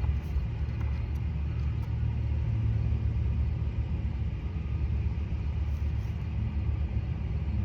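Steady low rumble of wind buffeting the microphone, flickering unevenly without any pitched tone.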